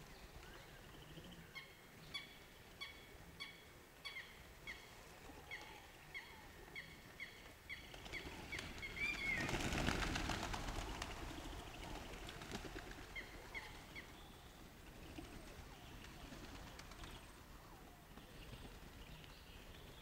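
A flock of pigeons taking off together, a swell of wing flapping about halfway through. Under it, a bird repeats a short high call, about three notes every two seconds, which stops a few seconds after the takeoff.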